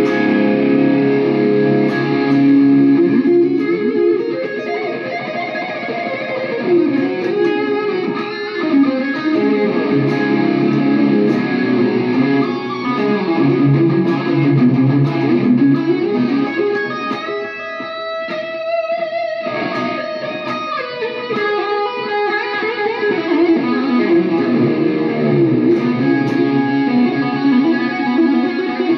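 Ibanez electric guitar played solo: fast lead runs with two-handed tapped passages, and one long held note about two-thirds of the way through.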